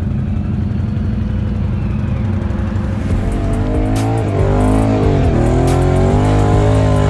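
Can-Am ATV engine running at a steady low pitch. About three seconds in, music with guitar and bass comes in, and a quad engine can be heard rising and falling in pitch under it as it is ridden.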